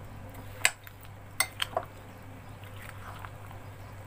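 Two metal spoons mixing a creamy salad in a glass bowl, clinking sharply against the glass a few times, over a steady low hum.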